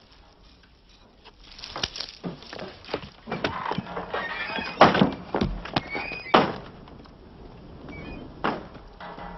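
Hurried footsteps on wooden boards and a screen door squeaking on its hinges and banging, a run of sharp knocks with short squeaks between them, loudest about five and six seconds in.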